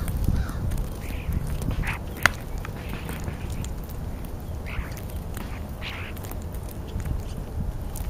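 A feeding flock of European starlings giving scattered short calls, several over the few seconds, with one sharp tick about two seconds in, over a steady low rumble.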